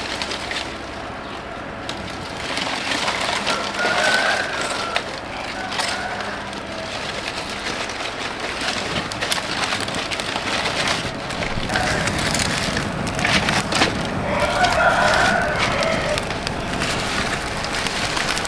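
A rooster crowing twice, about four seconds in and again near fifteen seconds, over a steady noisy background of rustling and clicks.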